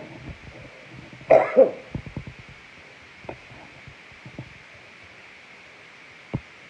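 A man coughs twice in quick succession about a second in. A few faint knocks and a sharp click follow near the end, over a steady faint hiss.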